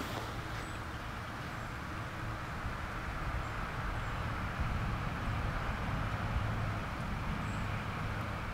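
Steady low rumble with an even hiss of outdoor background noise, swelling slightly in the middle.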